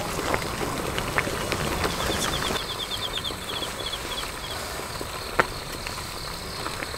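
Pot of water boiling on a camp stove with a retort pouch heating in it, a steady hiss and bubbling. A quick run of high ticks comes about two seconds in, and a single sharp click a little past five seconds.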